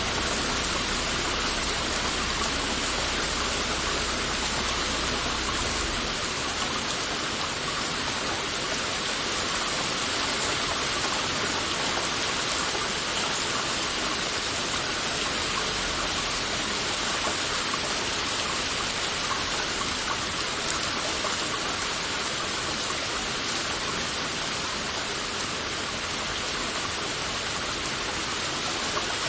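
Heavy rain falling steadily, a dense even hiss of countless drops with fine crackle from drops hitting surfaces. A faint low rumble underneath stops about six seconds in.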